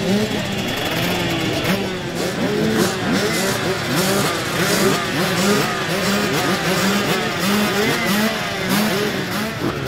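Several motocross bikes racing, their engines revving up and dropping back again and again in many overlapping rising and falling pitches.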